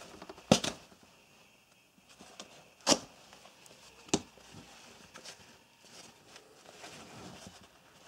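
Seatbelt webbing being cut with a serrated tanto knife and the strips handled on a wooden tabletop: faint rasping and rustling, broken by three sharp knocks about half a second, three seconds and four seconds in.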